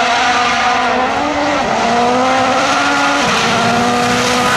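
Hyundai i20 N Rally1 car's turbocharged four-cylinder engine running at high revs on a gravel stage, its note stepping down in pitch twice as it changes gear, over a hiss of tyres and flung gravel.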